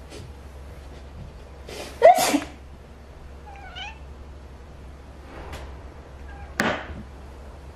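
Cat meowing: a loud, short, rough meow about two seconds in, then a faint wavering little meow. A sudden noisy burst comes near the end.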